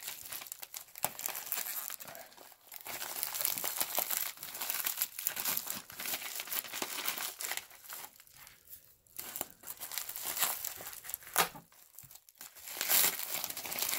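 Packing wrap of paper and plastic crinkling and tearing as hands pull it away, on and off with short pauses.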